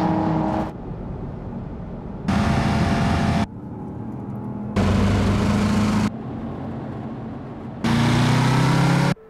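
V8 muscle car engines running in four loud passages about two and a half seconds apart, each starting and stopping abruptly, with quieter steady engine and road noise between them. The first falls in pitch as a car goes by; the last rises slightly in pitch.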